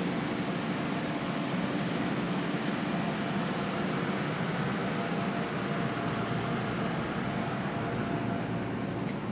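Amtrak passenger cars rolling slowly past at close range as the train pulls into the station: a steady rumble of steel wheels on the rails, with a faint steady hum underneath.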